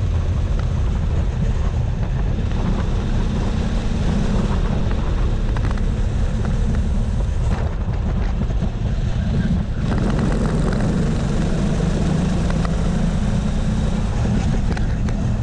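Go-kart engine running hard at racing speed, heard from a camera mounted on the kart, mixed with wind buffeting on the microphone. The sound is steady, with a brief dip in loudness about ten seconds in.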